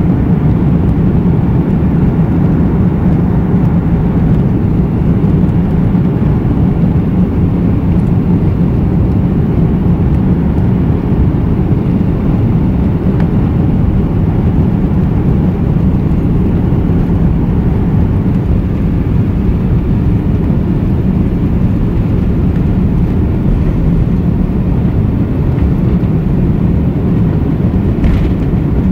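Airbus A330 jet engines running at takeoff power: a loud, steady low rumble that holds without change.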